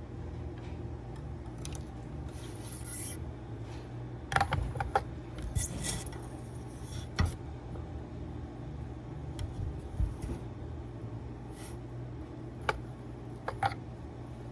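Workbench handling noises: scattered sharp clicks and short scrapes of small tools and wire being worked, over a steady low hum.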